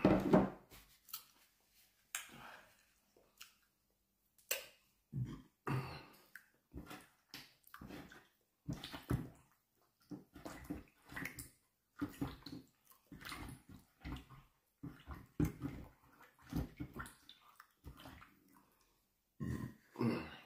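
Close-miked wet mouth sounds of eating: irregular smacking, chewing and swallowing, a few every second with short gaps.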